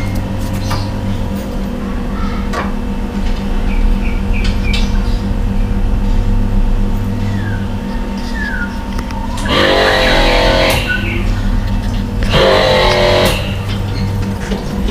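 A steady low mechanical hum of a running motor, with a few faint clicks.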